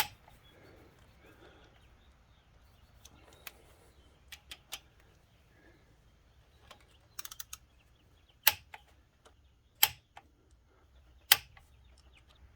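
Click-type torque wrench breaking over with sharp clicks on a second pass through the bolts at 25 foot-pounds. Three louder clicks come about a second and a half apart near the end, with a few lighter clicks and a short rattle of a socket before them. Each wrench clicks at once, showing the bolt already holds its 25 foot-pound torque.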